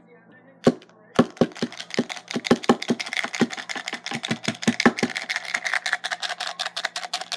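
Rapid, irregular clicks and taps, several a second, starting just under a second in and stopping near the end.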